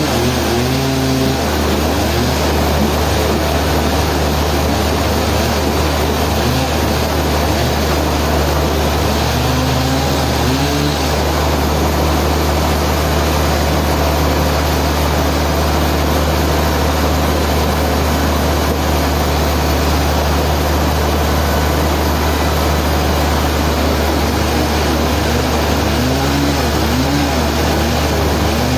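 Sawmill machinery running steadily and loudly with a deep hum, and brief rising and falling tones near the start, about ten seconds in, and near the end.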